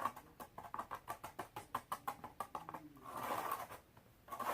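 Rapid small clicks and taps, about seven a second, from slime or the borax mixture being stirred and worked in a bowl; they stop about three seconds in.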